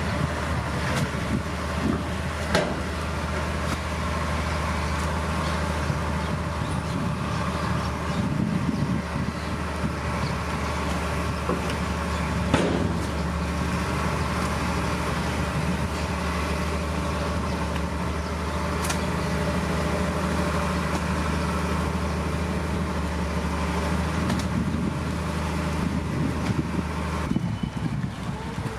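Heavy diesel engine of earthmoving machinery running steadily under load, with a few sharp knocks; the low engine drone drops away near the end.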